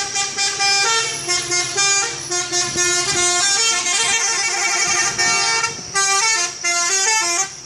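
Bus 'telolet' musical horn playing a tune of multi-tone notes that step up and down in pitch, ending in a run of quick short notes.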